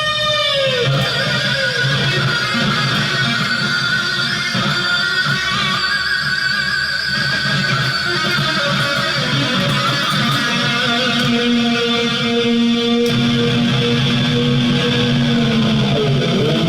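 Guitar music: an electric guitar playing long sustained notes that bend in pitch, with one long held note that slides down near the end.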